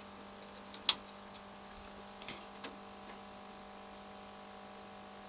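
A single sharp click about a second in as the solar panel string is connected to the MPPT charge controller, followed a second later by a brief softer scraping, over a steady electrical hum.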